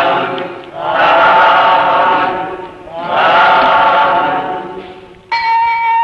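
Buddhist Pali chanting by a group of voices: three long drawn-out phrases. About five seconds in, a steady held note from a musical instrument begins.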